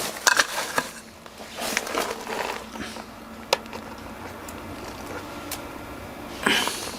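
Small clicks and rustles of handling, with one sharp click about three and a half seconds in, over a faint steady hum.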